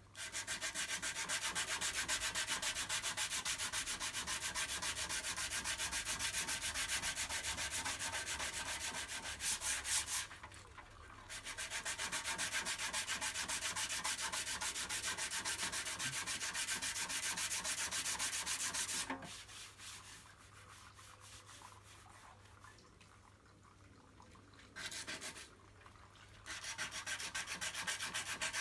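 Dry sanding of hardened body filler, with rapid, even, scratchy strokes in several long bouts. There is a brief pause about ten seconds in and a longer stop from about nineteen seconds, broken by a short burst, before the sanding resumes near the end.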